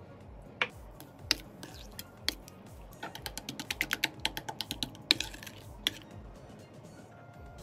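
A metal utensil clinking against the side of a stainless steel bowl as it stirs and beats a thin egg and milk mixture. There are a few separate clicks, then a quick run of about eight taps a second for two seconds, then two more sharp clinks.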